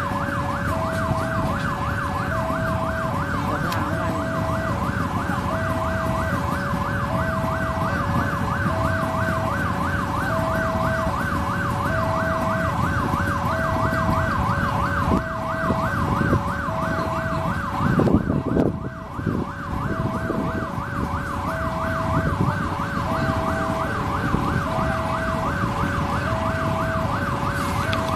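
Railway level-crossing warning alarm sounding continuously. Its electronic tone alternates between two pitches about once a second over a fast repeating ringing. Underneath is the low rumble of an approaching diesel locomotive hauling passenger coaches.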